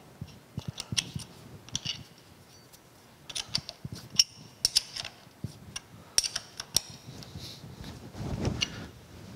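Kearney & Trecker Model H dividing head being adjusted by hand: irregular light metal clicks and clinks as the index crank's plunger pin is lined up with a hole in the index plate and the crank's clamp handle is tightened.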